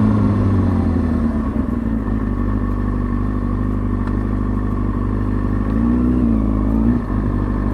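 2003 Kawasaki ZX-6R 636's inline-four engine running steadily at low revs as the bike rolls slowly. About six seconds in, the revs rise and fall briefly.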